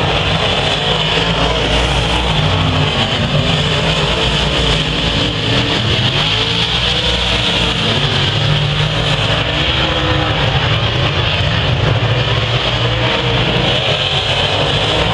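Several dirt-track race cars running laps on a dirt oval, their engines a loud, steady drone.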